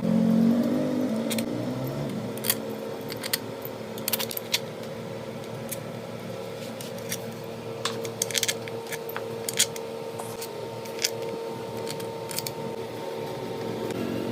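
Metal hand tools and parts clinking and tapping in irregular, scattered clicks over a steady hum.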